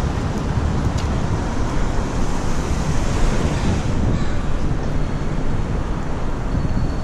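Wind rushing over a helmet-mounted action camera's microphone while riding a bike, mixed with road and traffic noise. A faint thin high whine comes in about four seconds in.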